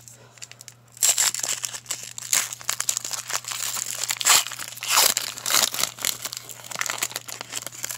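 Foil wrapper of a 2018 Select football card pack being torn open and crinkled in the hands: a dense crackling with sharp bursts that starts about a second in.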